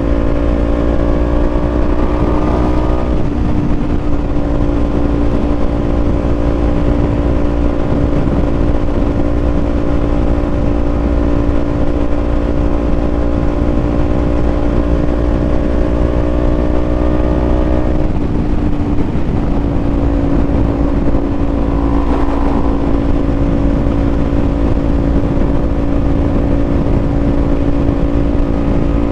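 Small parallel-twin motorcycle engine running at steady cruising revs under heavy wind noise on the helmet mic. The engine note changes pitch about three seconds in and again about eighteen seconds in, with the wind easing after the second change.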